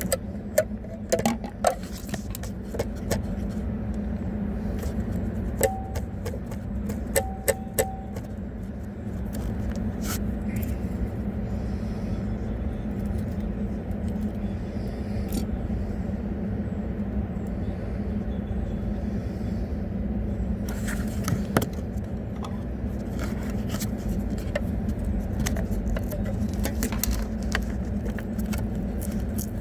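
Dashboard of a Tesla Model 3 rattling over a steady road rumble inside the moving car's cabin: sharp clicks and ticks come in clusters, thickest in the first several seconds and again about two-thirds of the way through.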